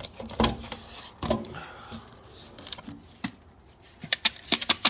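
Handling noise from unpacked tool box parts: a couple of knocks and some rustling, then a quick run of sharp clicks near the end.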